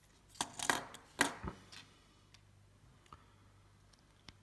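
Small LEGO plastic pieces clicking and clattering as they are handled and set on the tabletop: a quick cluster of sharp knocks in the first two seconds, then a couple of single clicks later.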